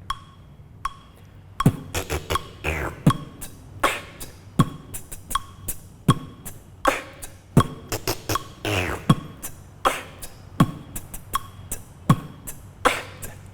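Beatboxed rhythm at 80 BPM over a metronome click: a mouth kick drum, the inward tongue roll (a rasping sound made by inhaling over a rolled, vibrating tongue), an inward K snare and hi-hats. The metronome clicks alone at first, and the beatbox comes in about two seconds in.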